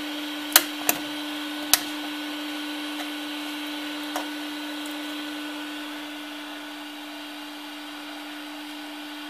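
Steady hum of a finished ROBO R1 3D printer standing idle with its fan still running, under a few sharp plastic clicks as the printed ABS parts are lifted off the glass bed and handled: three in the first two seconds, then two fainter ones.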